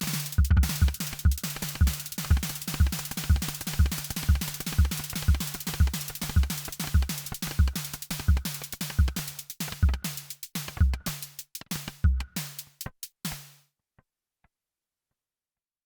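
Groove Synthesis 3rd Wave wavetable synthesizer playing a percussive patch: a fast, even rhythm of deep thumps and sharp clicks over a low held tone. It dies away a couple of seconds before the end, leaving silence.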